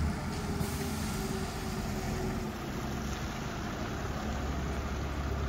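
Diesel engine of a MAN/JDC compact fire appliance running as the truck drives slowly across the station yard: a steady low rumble that grows stronger near the end.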